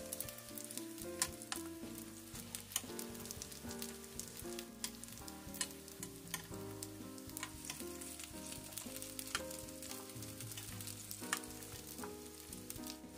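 Chive dumplings sizzling in oil in a nonstick frying pan as the last of the steaming water fries off with the lid removed, crisping their bottoms. Metal tongs click sharply against the pan now and then as the dumplings are turned.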